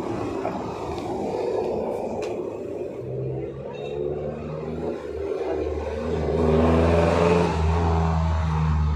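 A motor vehicle's engine running, its low hum growing louder in the second half and peaking about seven seconds in.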